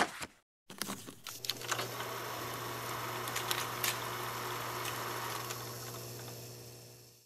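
A brief swoosh transition, a moment of silence, then an old-film sound effect: a steady low hum with scattered crackles and pops, fading out near the end.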